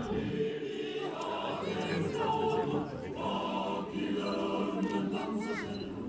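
A large choir singing, many voices holding long notes together.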